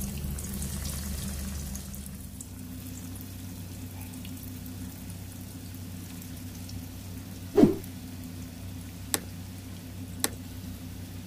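Breaded chicken pieces sizzling in hot oil in a pan, a steady hiss that is louder for the first couple of seconds as a piece goes in. About two-thirds of the way in comes one sharp knock, the loudest sound, and two short clicks follow near the end.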